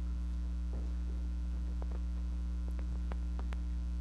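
Steady electrical mains hum on the audio feed, with a few faint clicks and rustles over it.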